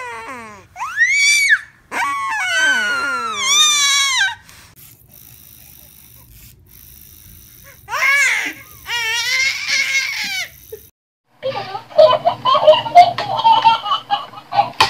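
Babies squealing and laughing in high-pitched, rising and falling bursts: one run in the first few seconds, another about eight seconds in. Near the end comes a louder, busier jumble of sound.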